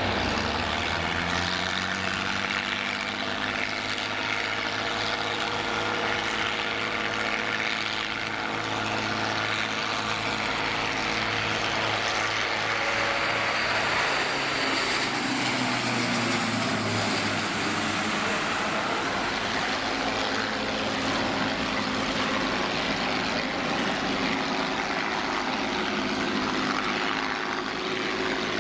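Airbus A400M's four turboprop engines with eight-bladed propellers at takeoff power, a loud steady propeller drone as it rolls and lifts off. Its pitch drops as it passes by about halfway through, and the drone carries on as it climbs away.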